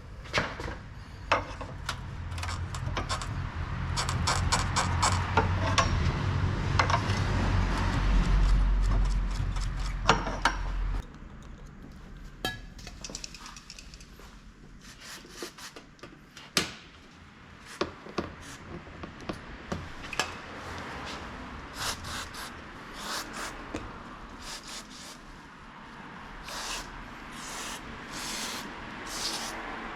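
Clicks, knocks and rubbing from hand-tool work on car parts, scattered and irregular. A low rumble builds under them and stops abruptly about eleven seconds in.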